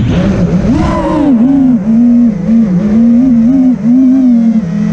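Brushless motors and propellers of a 5-inch FPV quadcopter (Brother Hobby Returner R6 2306 2450kv motors) whining loudly, the pitch swooping up and dipping again and again as the throttle is worked through turns.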